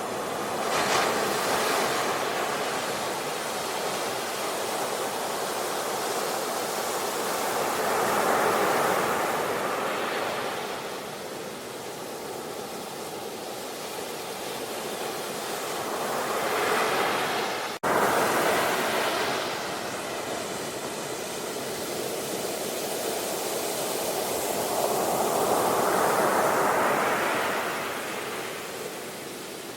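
Sea waves breaking and washing up the shore, the surf swelling and fading away about every eight or nine seconds. A split-second drop-out a little past halfway.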